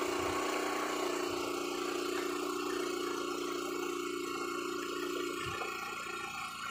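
A motor running steadily at idle with an even hum that fades about five seconds in, and a short low thump near the end.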